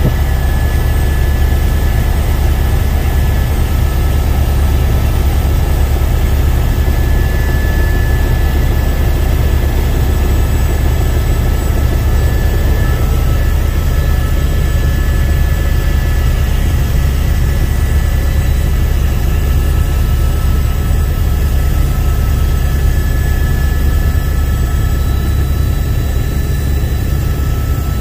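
Helicopter in flight heard from inside the cabin: a steady, loud low rotor drone with a faint high engine whine above it.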